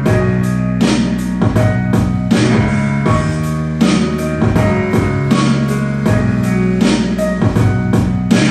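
Music with a steady drum beat and bass, played loud through a 125 W + 125 W stereo transistor amplifier board running without bass or treble controls, as a sound test.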